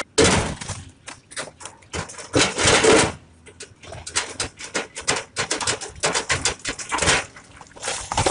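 Rock and earth clattering down a slope as an excavator bucket breaks them loose from a rock face: a dense, irregular run of sharp knocks and clicks, with heavier rushes of falling debris near the start, around two and a half seconds in, and again near seven seconds.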